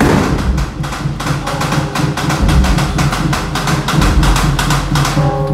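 Fast, irregular clatter of sharp percussive strokes, several a second, over a steady low hum.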